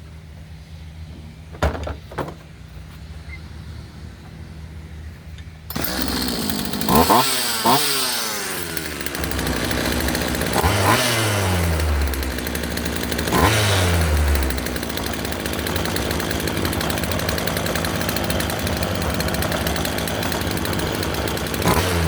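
Two light clicks, then the Craftsman chainsaw's small two-stroke engine starts suddenly and runs loudly. It is revved up and let fall back three times, each time with a falling whine.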